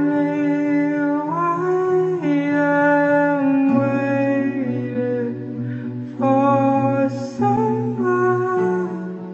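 Slow background music: held notes over a steady low tone, with a melody that moves slowly up and down in steps.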